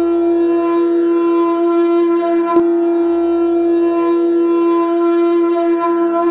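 A conch shell (shankh) blown in one long, steady held note, loud and unwavering in pitch, with a brief click partway through.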